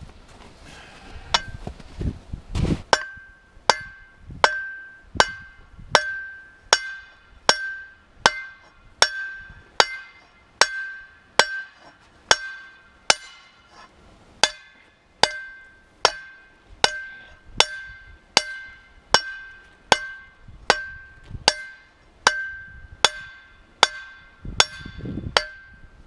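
Hand hammer forging a red-hot steel motor shaft, steady blows a little over one per second, each strike giving a sharp metallic ring. A few heavier thumps come before the steady hammering starts about three seconds in.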